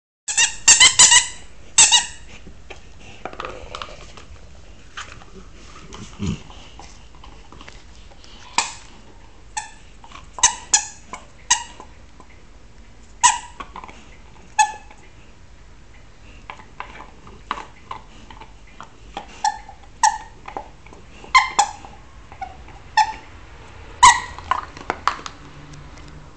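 Squeaky toy being chewed by a pet, giving short, sharp squeaks at irregular intervals, sometimes two or three in quick succession, with longer gaps between.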